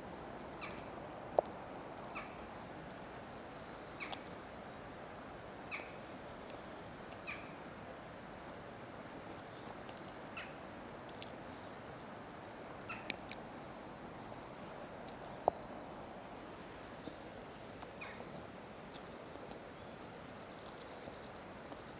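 Small birds chirping over and over: short, high, falling notes in quick clusters, over a steady background rush. Two single sharp ticks stand out, one about a second and a half in and one about fifteen seconds in.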